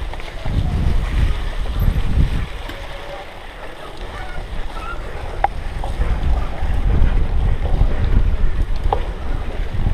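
Wind rumbling and buffeting on a chest-mounted GoPro Hero 3's microphone while a cyclocross bike is ridden fast over bumpy grass and dirt, the rumble rising and falling with the ground. Two short squeaks stand out, about halfway through and near the end.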